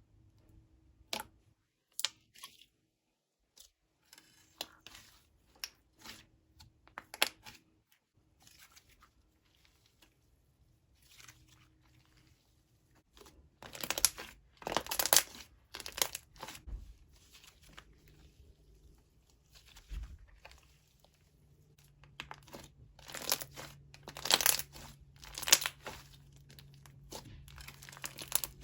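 Inflating butter slime being stretched, pressed and pulled apart by hand: scattered soft clicks, then clusters of louder, noisy bursts around the middle and again near the end.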